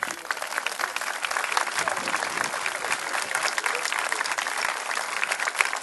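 Crowd applauding, a dense patter of many hands clapping that starts suddenly and holds steady.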